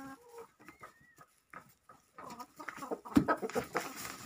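Domestic hens clucking, with a thin high peep about a second in and a busier run of short clucks and ticks over the last two seconds.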